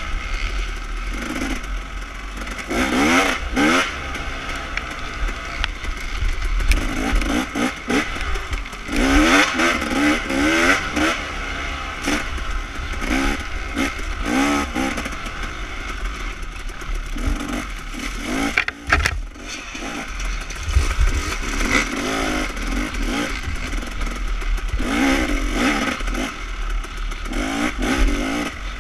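Off-road dirt bike engine heard from on the bike, revving up and down again and again as the throttle is opened and closed on a rough trail, with a brief drop in the engine note about two-thirds of the way through. Rattles and scrapes from the bike working over rough ground run underneath.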